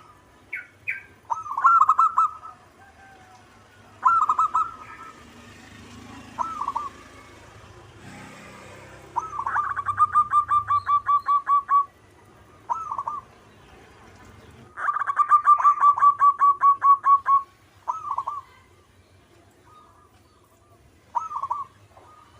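Zebra dove (perkutut) singing: short single coos scattered between two long staccato trills of rapid, evenly spaced cooing notes, each trill lasting about two and a half seconds.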